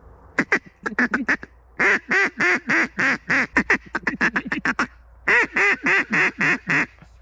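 Duck quacks in several quick runs of short, loud notes with brief pauses between the runs.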